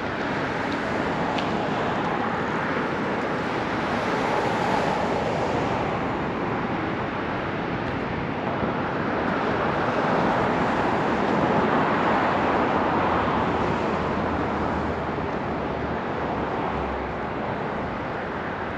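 Steady city road traffic, with passing cars swelling louder about four seconds in and again from about ten seconds.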